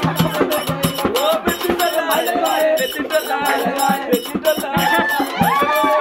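Folk music with a fast, steady rattling beat, mixed with voices and crowd noise.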